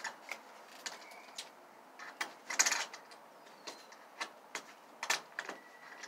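Irregular metallic clicks and scrapes from a hand tool working at a stuck self-tapping screw in a door hinge. A longer, louder scrape comes a little before the middle, and a sharp click near the end.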